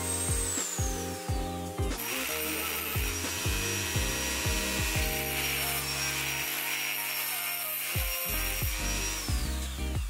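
High-speed rotary tool with a cut-off disc grinding into a steel sleeve. Its high whine winds down in the first two seconds, starts again with a steady grinding hiss, then winds down near the end. Background music with a steady beat runs underneath.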